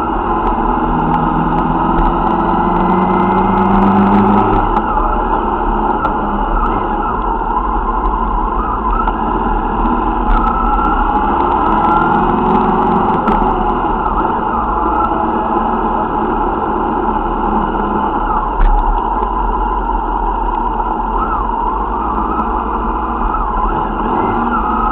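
Motorcycle engines running at low speed in a slow procession, heard from a bike in the line, over a steady rush of wind and road noise; the nearest engine note rises twice as the bike picks up speed, a few seconds in and again around the middle.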